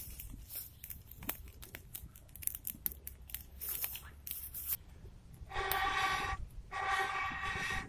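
Dry twigs and pine needles crackling and snapping as a small campfire catches. Then, about five seconds in, two long blows through a blow tube into the fire, each giving a steady pitched tone about a second long, with a short pause between them.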